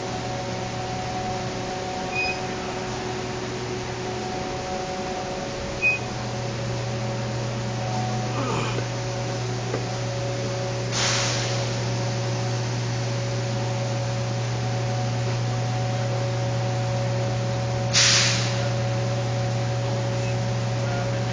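Steady hum of running plant machinery: a low drone with several steady tones above it, broken twice by short bursts of hiss about 11 and 18 seconds in.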